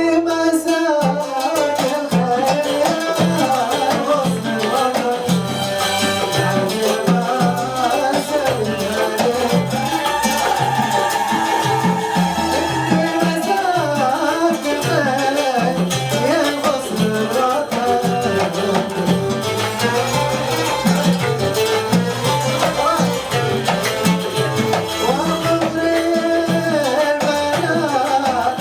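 Live Arabic wedding music: a steady drum beat under a melody, with a long held note around the middle.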